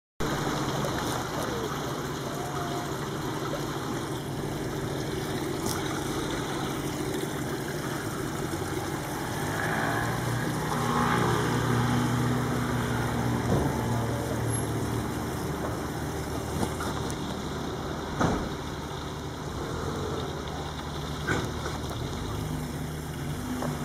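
A motor vehicle engine running steadily with a low hum, growing louder for a few seconds around the middle. A few sharp knocks sound over it, the loudest about three-quarters of the way through.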